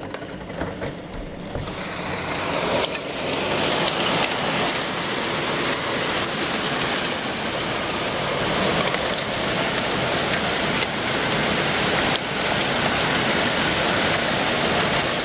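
Hail and heavy rain pelting down, a dense, steady clatter of countless small hailstone impacts over a rushing hiss. It builds up over the first couple of seconds, then holds steady.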